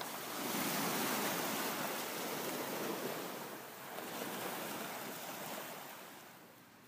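Gulf surf washing onto the beach below, heard as a steady rushing that swells and eases, then fades away near the end.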